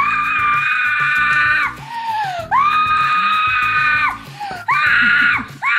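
A boy screaming: two long, high-pitched screams of about a second and a half each, then two shorter ones near the end, over background music.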